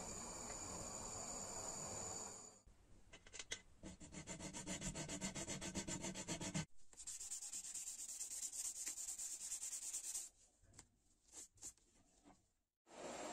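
A steady gas-torch flame hiss. Then a hand file rasps excess tin solder off the copper of a kettle, first in quick even strokes and then in a steadier scrape. It trails off into a few light scratches near the end.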